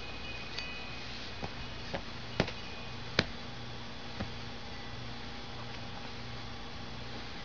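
A handful of sharp taps and clicks at irregular intervals, the loudest two a little under a second apart, over a steady low hum.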